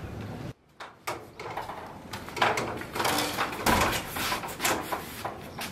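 A door being handled: after a brief hush, a run of knocks, scrapes and rattles as it is opened and pushed through.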